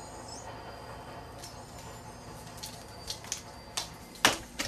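Scattered light taps and clicks, then two sharper knocks about four seconds in, from a cat's paws and a small toy striking a laminate floor as the cat pounces on the toy.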